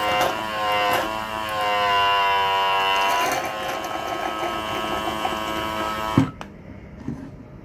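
Small electric motor running with a whine that shifts in pitch, then cutting off with a click about six seconds in.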